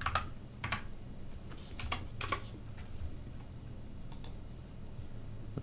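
Computer keyboard and mouse clicks: a few scattered, irregular taps over a faint low steady hum.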